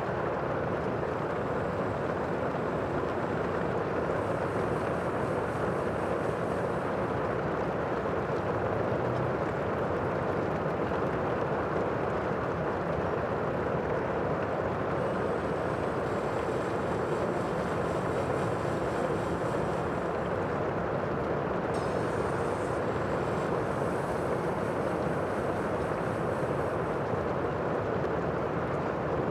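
Sea ambience: a steady, even rushing of water and wind, with no distinct wave breaks standing out.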